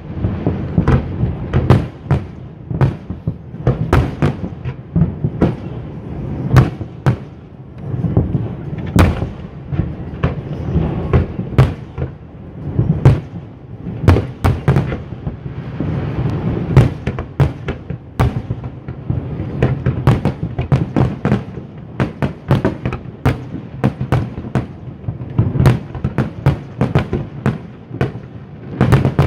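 Fireworks display: aerial shells launching and bursting in a rapid, unbroken string of sharp bangs, often several a second, over a steady low rumble.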